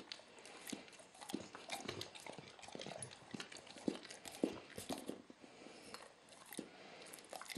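A dog licking its chops after eating a steak: faint, irregular wet smacks and tongue clicks, several a second.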